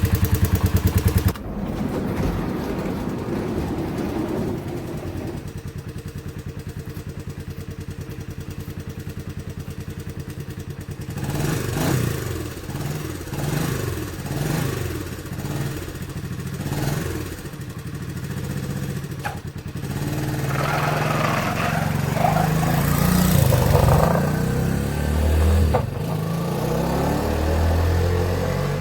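1983 Honda ATC 185S three-wheeler's single-cylinder four-stroke engine running while it is ridden. Its revs rise and fall several times about halfway through, and it runs harder and louder near the end.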